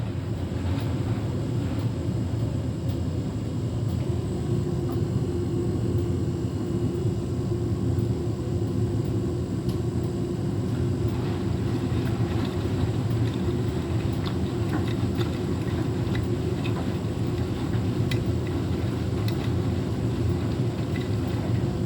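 Beko WTK104121W washing machine's motor and drum running steadily with an unbalanced load of bedding, a constant hum with a few faint ticks.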